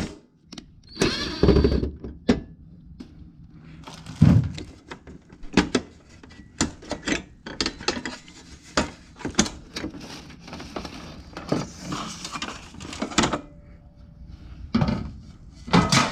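Equipment being handled: an irregular string of knocks, clunks and light rattles, with the loudest thumps about a second and a half and about four seconds in.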